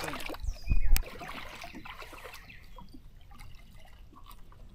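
Shallow creek water trickling faintly with small ticks and drips. A low thump and a sharp click come about a second in.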